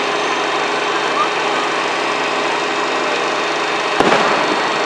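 Steady droning background noise, with a single sharp bang from a firework about four seconds in.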